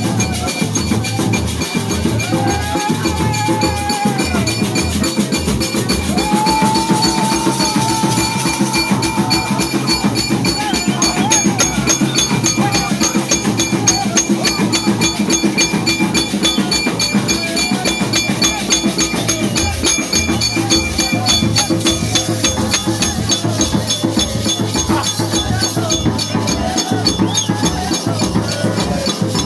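Large wooden hand drums beaten in a fast, steady rhythm, with a constant metallic ringing over them and voices singing along.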